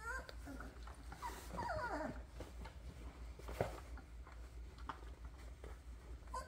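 Doberman puppies about two and a half weeks old whimpering: short high squeaks that fall in pitch, one at the very start and a cluster of several about one and a half to two seconds in. Small scuffling clicks of paws on towel and carpet run underneath, with one sharp tap about three and a half seconds in.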